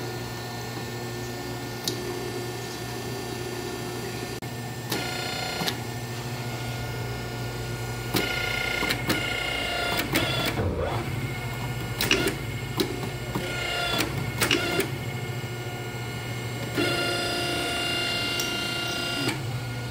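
Hydraulic hose crimping machine running: a steady low hum, with several stretches of a higher whine lasting one to a few seconds, and sharp clicks and knocks around the middle.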